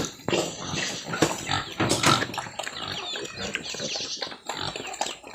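Pigs grunting and snuffling at their feed trough, a run of short, irregular noises.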